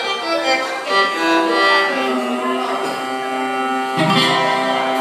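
Greek bouzouki played solo: a slow melody of plucked notes, some held long, stepping downward, with a louder stroke about four seconds in.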